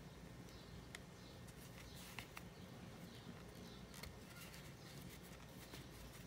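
Near silence: faint, scattered clicks and rustles of a metal crochet hook working cotton twine, over a low steady hum.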